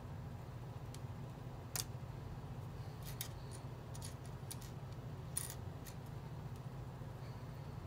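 Sharp little plastic clicks of Lego pieces being handled and worked off a grey plastic parts sprue, a scattered series with the loudest about five and a half seconds in, over a steady low hum.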